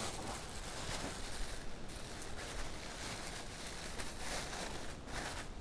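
Quiet outdoor ambience: a steady faint hiss with light rustling and a few small clicks.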